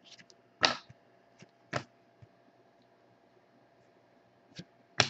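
Trading cards being handled as a pack is flipped through: a few short, sharp card slides and taps, the loudest a little under a second in, another about a second later, and two more near the end.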